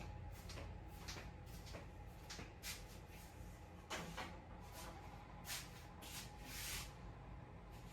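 Short, irregular scraping strokes of sandpaper on a small wooden rib piece being sanded to an angle by hand, the longest stroke near the end, over a steady low hum.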